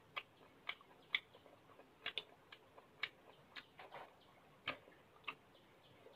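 A metal fork clicking faintly against a ceramic bowl as food is picked up, about a dozen small irregular clicks.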